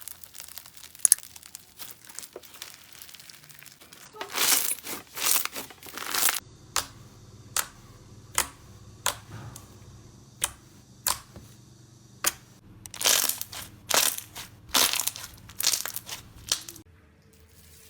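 Crunchy slime being pressed and pulled by hand, giving crisp crackling and snapping. Dense bursts of crackle, then a run of single sharp snaps about one a second, then more bursts, stopping shortly before the end.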